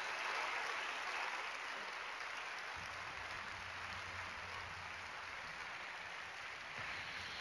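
Audience applauding, the applause gradually dying away.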